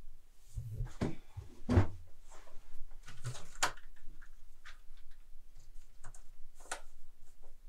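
Handling noises as over-ear headphones are picked up and put on: a string of light clicks, knocks and rustles, the sharpest about three and a half seconds in.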